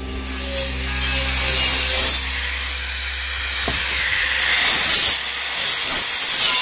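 Angle grinder grinding the paint off a steel bar, a harsh high hiss that swells and eases as it is worked along the metal. For about the first two seconds, before it, a steady low hum over a crackling hiss.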